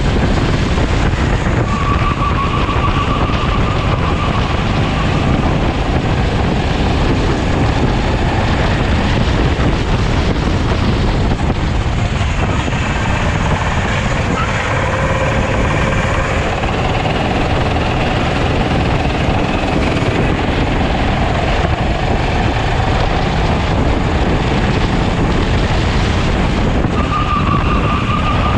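Onboard sound of a Sodi rental kart on track: its engine running hard, the pitch shifting as the kart speeds up and slows through corners, under heavy wind rush on the microphone.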